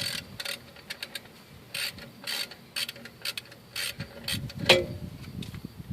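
Socket ratchet working a 10 mm bolt on a rear drum-brake wheel cylinder, the pawl clicking in short strokes about twice a second. A louder metallic clank comes near the end.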